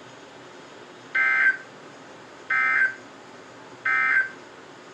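NOAA Weather Radio end-of-message SAME data bursts: three short buzzy digital chirps about a second and a half apart, over steady receiver hiss. They mark the end of the warning broadcast.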